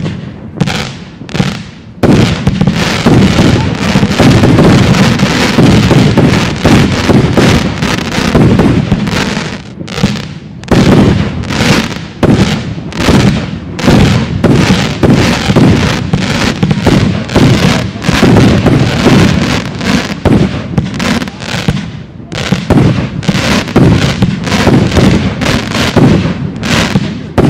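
Professional fireworks display: aerial shells launching and bursting in a rapid, almost continuous barrage of loud bangs, with brief lulls about two, ten and twenty-two seconds in.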